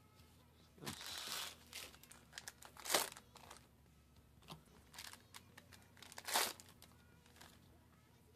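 Foil trading-card booster pack wrappers crinkling and cards being handled, in short bursts; the loudest crinkles come about three seconds and about six seconds in.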